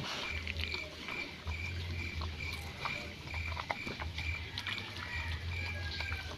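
A puppy eating rice from a metal plate: wet chewing and licking, with small clicks of teeth and tongue on the plate. A faint high chirp repeats a few times a second in the background.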